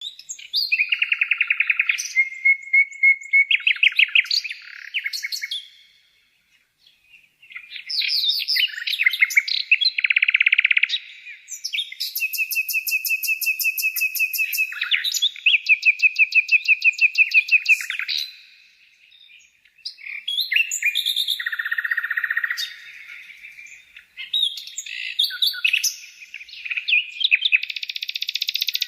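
A songbird singing a long, varied song of fast trills, rattling rolls and runs of repeated high notes, broken by two short pauses.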